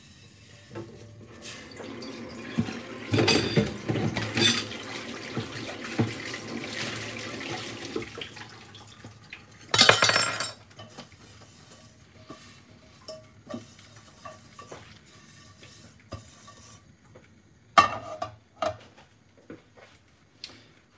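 A tap running as a metal frying pan is rinsed out at the sink, with the pan clattering, and a short loud burst of noise about halfway through. Near the end the pan is set down on the gas hob's grate with a sharp metal clank.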